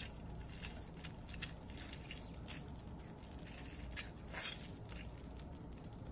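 Lemon half squeezed by hand through a small metal mesh strainer: faint squishing and crackling of the fruit and peel in a quick irregular series of soft ticks, one louder crackle about two-thirds of the way through.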